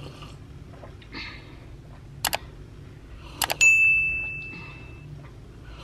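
Sound effect of a subscribe-button animation: two quick pairs of mouse clicks, then a bright bell ding that rings out and fades over about a second and a half, over a low steady room hum.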